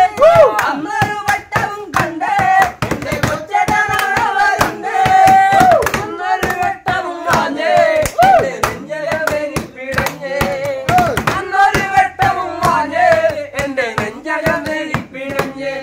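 Men singing a song loudly together, with hand claps and slaps on a tabletop keeping a steady beat.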